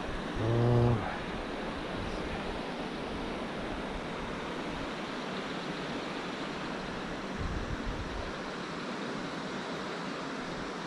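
Steady, even rushing noise of wind on the microphone, with a short low hum from a man's voice about half a second in.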